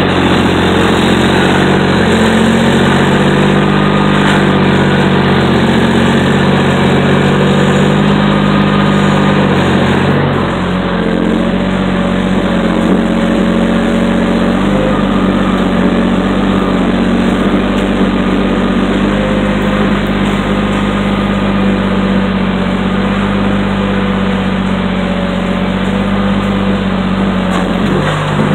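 Heavy diesel engines running steadily: first the debris-clearing machines, then, after a change about ten seconds in, a truck's engine heard from inside its cab.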